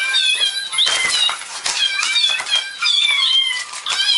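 Cat giving a rapid string of short, high-pitched chirps and mews.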